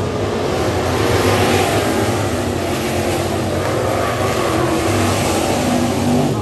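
A pack of dirt-track stock cars' V8 engines running at racing speed as the field passes close by, several engines blending into one loud, steady drone that swells about a second in.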